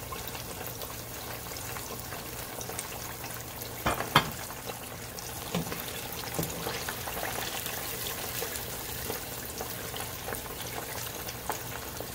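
Breaded chicken pieces sizzling steadily as they deep-fry in hot oil in a pot. Two sharp clicks about four seconds in come from the metal tongs against the pot.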